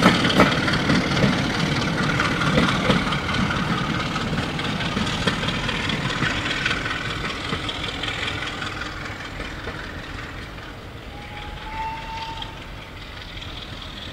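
Train hauled by a Class 33 diesel locomotive pulling away: the coaches' wheels clatter over the rails and fade steadily as the train recedes, with the diesel's engine note behind. A brief high tone sounds about twelve seconds in.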